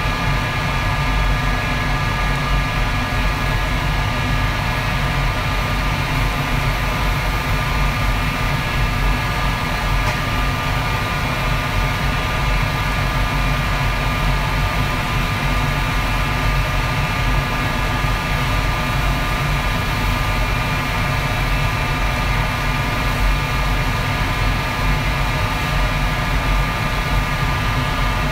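A commercial wok stove runs with a steady roar, with a few faint steady whines over it, while battered mushrooms deep-fry in its wok.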